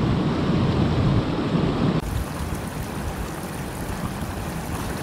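Water rushing over a low concrete weir, a steady hiss of running water. About two seconds in the sound changes abruptly: the heavy low rumble drops away and a thinner, even hiss remains.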